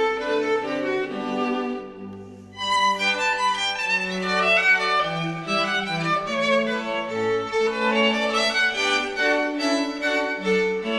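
Instrumental background music with sustained, melodic notes. It drops away briefly about two seconds in, then comes back.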